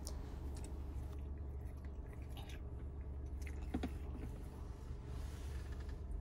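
Quiet background with a steady low hum and a few faint, scattered clicks and taps.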